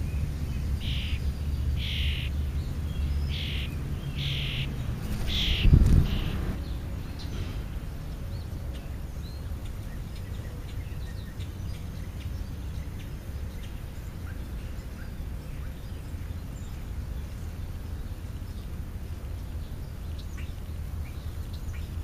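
A fledgling European starling makes raspy begging calls, five short calls about a second apart, over a low rumble. About six seconds in there is one loud dull thump, after which only faint distant chirps remain.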